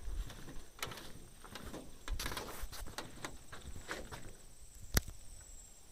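Uneven footsteps and rustling of someone walking, with one sharp click about five seconds in.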